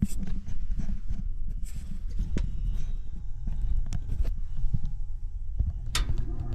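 Scattered light knocks and handling thumps over a low rumble, with a sharp click about six seconds in.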